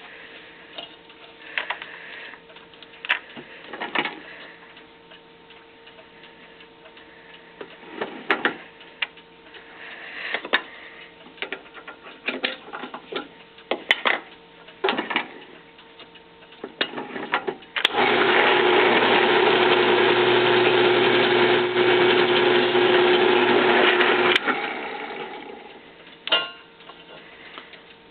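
Scattered clicks and knocks as a KWM-style reamer is set in a drill press adapter and brought to a clock plate. Then the drill press motor runs steadily for about six seconds, reaming a pivot hole to take a new bushing, and cuts off and winds down near the end.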